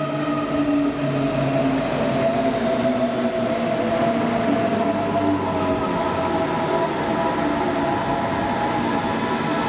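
DB Class 423 S-Bahn electric multiple unit running along the platform: a steady whine of several held tones from its electric drive over the rumble of the wheels on the rails.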